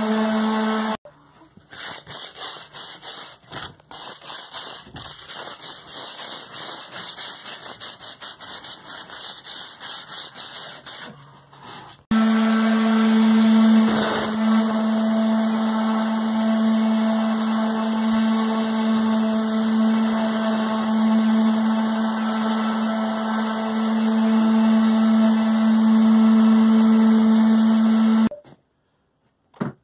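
Small handheld electric orbital sander running with a steady hum while sanding a ceiling. The motor stops about a second in, leaving quieter irregular rubbing and clicking for about eleven seconds. It then starts again and runs steadily until it cuts off suddenly near the end, followed by a single click.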